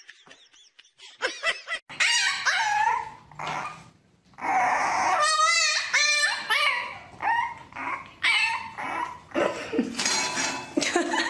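Puppy whining and yelping: a run of high cries that rise and fall in pitch, starting about two seconds in.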